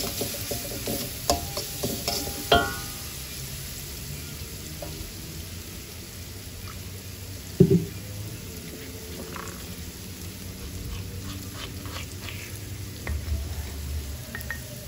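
Sliced shallots and ground spice paste of garlic, shallot and ginger sizzling in oil in a wok. A metal spatula scrapes and clanks against the wok a few times in the first three seconds, then the steady frying hiss carries on alone.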